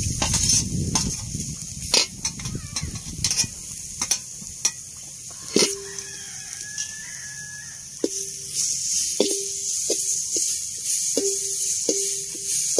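Grated coconut being fried in an aluminium kadai, stirred with a perforated metal ladle. At first it is scraped off a metal tray into the pan. Then the ladle scrapes and knocks the pan, which rings briefly with each knock, and a sizzling hiss rises from about eight seconds in.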